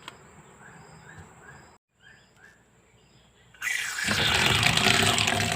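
Faint bird chirps repeating in the background, then about three and a half seconds in, a loud, steady rush of water starts running from a tap.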